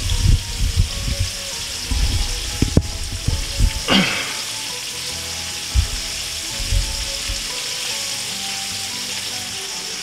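Panko-breaded mutton snapper pieces sizzling steadily as they pan-fry in hot oil in a skillet. Low knocks and bumps in the first few seconds, and a brief falling swoosh about four seconds in.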